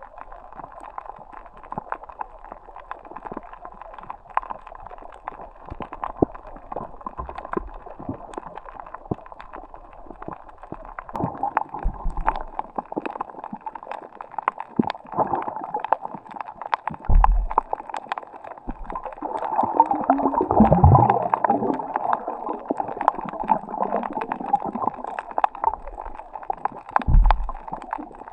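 Water gurgling and sloshing, with scattered sharp clicks and a few low thumps, the heaviest about twenty seconds in.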